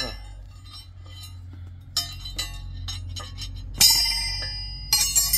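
Metal tools or parts knocking together: small clicks, then three sharp clanks, about two seconds in, near four seconds and at five seconds, each left ringing like a bell.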